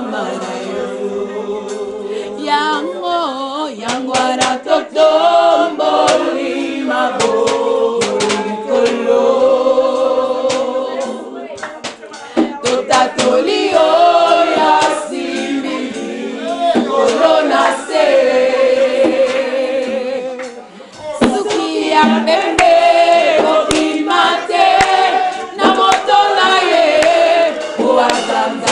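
Three women singing a gospel worship song together, several voices in harmony holding long notes.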